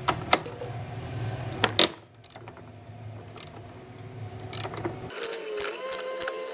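Wrench and ratchet turning the track-adjuster bolts at the rear of a 1997 Polaris Indy Sport snowmobile's track, tightening a loose track: scattered metallic clicks. A low hum runs underneath and stops about five seconds in.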